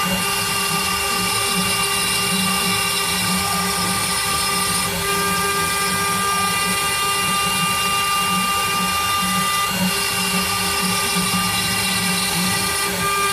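Homemade CNC router's spindle running steadily with a high whine while its bit carves a 3D relief into wood. The tone pattern changes briefly about five and ten seconds in.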